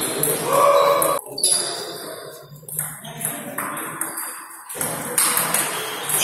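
Table tennis rally: the ball clicking sharply off rackets and the table again and again, with more ball clicks from neighbouring tables in a large hall.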